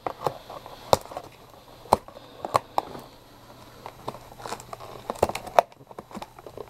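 Hands working at stiff box packaging to get it open: scattered, irregular clicks and crinkles.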